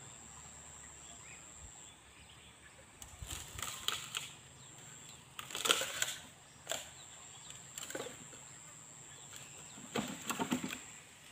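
Several short bursts of rustling and crackling close to the microphone, the loudest a little under halfway through and another near the end, over a faint steady high-pitched whine.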